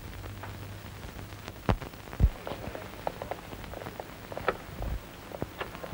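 Faint scattered clicks and knocks, with two louder knocks about two seconds in, over a low hum that fades after the first couple of seconds.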